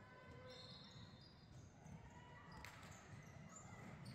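Faint basketball gym sounds: a ball bouncing on the hardwood court and short high sneaker squeaks, with one sharp knock near the end, over the hall's low rumble.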